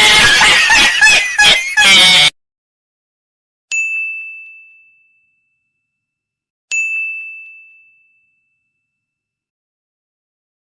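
A loud, noisy sound full of mixed tones that cuts off abruptly a little over two seconds in, followed by two single high bell dings about three seconds apart, each struck once and ringing away over about a second.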